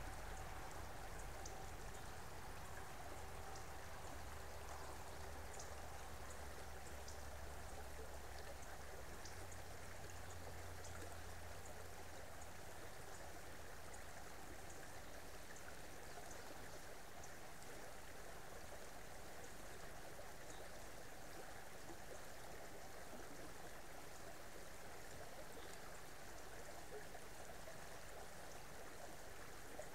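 Creek water flowing steadily, a continuous rush with faint small splashes. A low rumble underneath drops away about nine seconds in.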